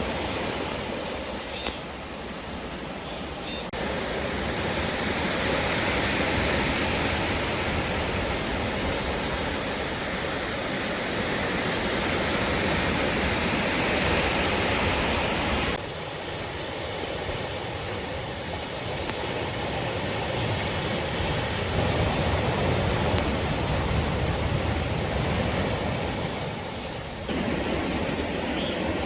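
Sea waves washing and breaking on the shore, a continuous rushing surf noise that swells and eases. The sound changes abruptly about 4, 16 and 27 seconds in.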